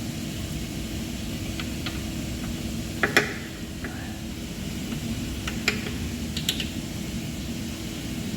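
Scattered sharp clicks and small knocks of connectors and fittings being handled as electrical leads are unplugged from a boiler burner, the loudest a double click about three seconds in, over a steady mechanical hum.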